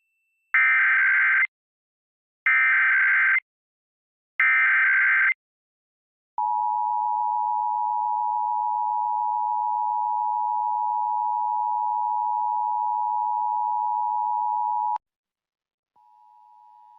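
Emergency Alert System Required Monthly Test: three one-second bursts of SAME header data tones, about a second apart, then the steady two-tone EAS attention signal (853 and 960 Hz) held for about eight and a half seconds before cutting off suddenly. A much fainter steady tone starts about a second later, near the end.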